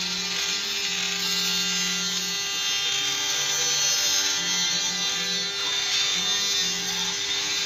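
Small handheld electric mini drill running steadily with a high whine as its bit works into a small piece of wood, over background music.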